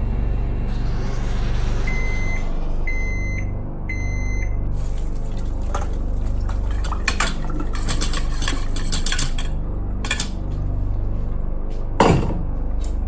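Microwave oven beeping three times, each beep about half a second long, to signal that the cook time is up. Then clicking and clatter of the door and dish being handled, with one loud knock near the end.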